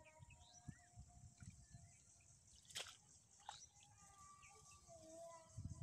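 Near silence: faint outdoor ambience with thin, wavering bird calls and two soft sharp clicks in the middle, over a faint low rumble.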